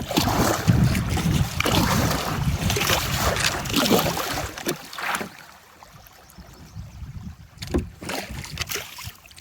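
Kayak being worked up and over a beaver dam: water splashing and the hull bumping, busy for about five seconds, then quieter with a few sharp knocks near the end.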